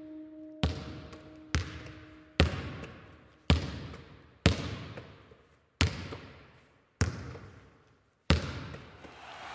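A basketball bounced slowly on a gym floor, eight echoing bounces roughly a second apart. Crowd noise begins to rise near the end.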